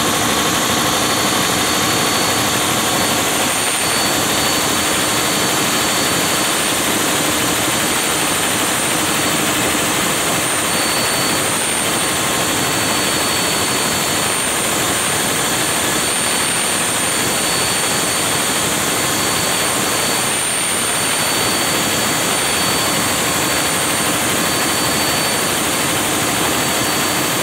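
Gas generator running steadily: a loud, even rushing noise with a few steady tones on top, one of them a high whine.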